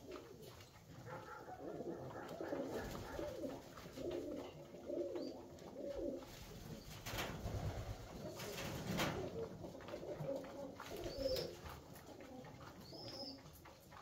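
Alföldi-Körösi tumbler pigeons cooing, low and wavering, with a few short knocks in between.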